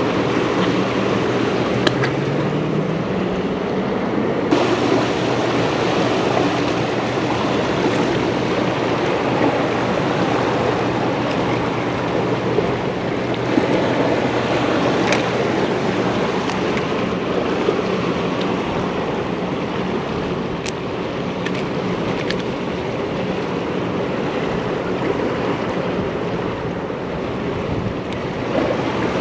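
Steady rushing of turbulent tailwater below a dam, with a faint low hum beneath and a few small clicks.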